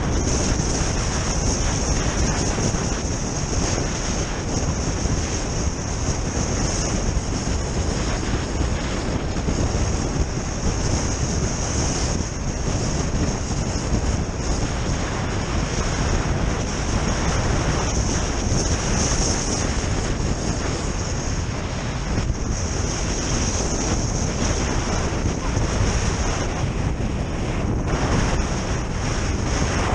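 Steady rush of wind over a helmet camera's microphone while kite-skiing, mixed with a high, continuous hiss of skis sliding over hard, wind-crusted snow.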